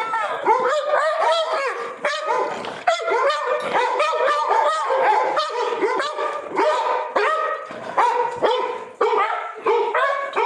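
Several pit bulls vocalizing at once: overlapping high whines and howl-like yowls mixed with yips and barks, in an excited greeting.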